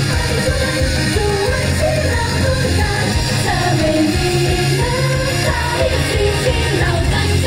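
Loud live idol-pop song over a concert sound system: women singing the melody into microphones over amplified music with a heavy, steady bass.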